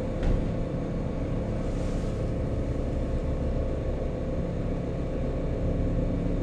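Steady low rumble with a faint continuous hum, and one brief click about a quarter of a second in.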